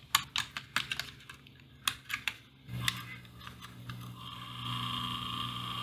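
A battery and wires being handled give a run of sharp clicks and taps. About two and a half seconds in, the AIWA TP-31's small DC drive motor starts running on the new battery connection with a steady hum. A higher steady whine joins it about a second and a half later.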